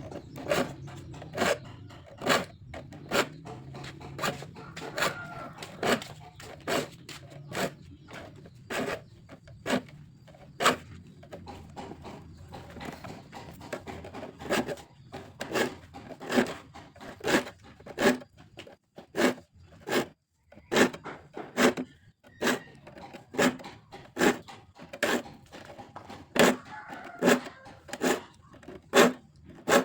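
A saw file rasping across the teeth of a hand saw in short, even strokes, about one a second, as the saw is sharpened.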